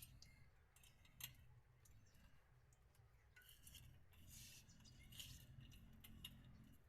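Near silence with a few faint, scattered short clicks and clinks over a low hum.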